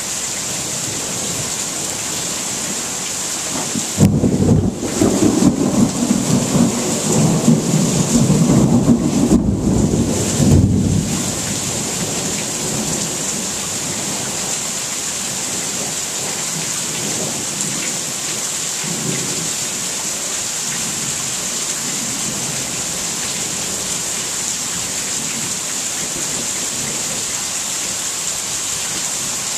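Steady rain with a loud clap of thunder about four seconds in that rumbles on for roughly seven seconds before fading back into the rain; a few fainter rumbles follow later.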